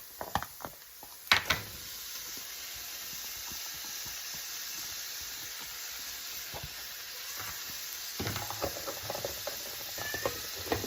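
Steak bites dropping into a frying pan of softened vegetables: a couple of knocks, then steady sizzling. From about eight seconds in, a utensil stirs and scrapes through the pan over the sizzle.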